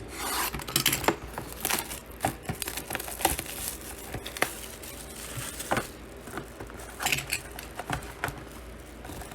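Plastic and paper packaging of a sports card box crinkling and tearing as it is opened, with scattered clicks and rustles from handling the cards.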